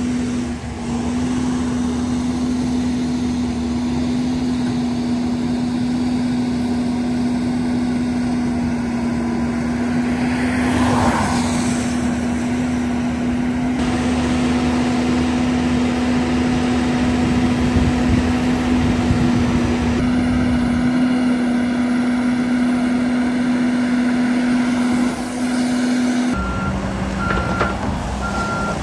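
Caterpillar backhoe loader at work, with a steady low drone under noise. Near the end its reversing alarm starts beeping about once a second.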